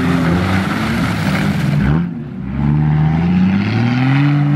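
Off-road 4x4's engine revving as it ploughs through deep mud, its pitch rising and falling with the throttle. The engine eases off about two seconds in, then climbs again near the end.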